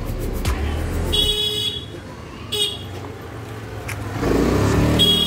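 Street traffic: a motor vehicle passes, swelling in loudness about four seconds in, with a few short horn toots, over soft background music.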